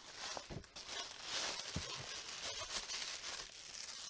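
Tissue paper rustling and crinkling as it is pulled out of a paper shopping bag, a continuous crisp crackle with two soft low knocks from the bag being handled.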